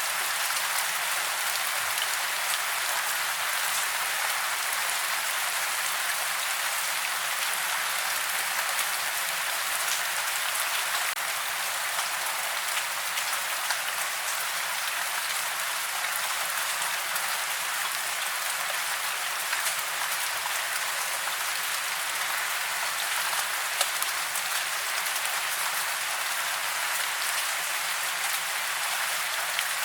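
Steady rain, an even hiss with almost no low end and the odd slightly louder patter.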